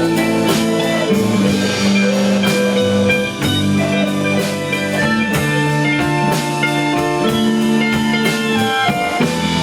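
Rock band playing an instrumental passage: electric guitar and bass holding and changing notes over a steady drum-kit beat, with no vocals.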